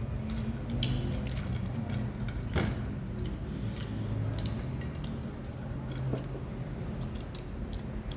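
French fries being picked off a plate and eaten: scattered soft clicks, taps and mouth noises over a steady low hum.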